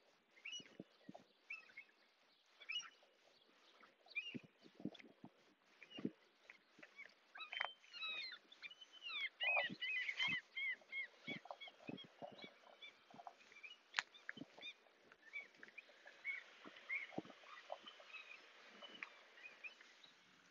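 Several birds singing and calling, with many short overlapping chirps and whistles that are busiest about ten seconds in. Soft low thuds come and go beneath them.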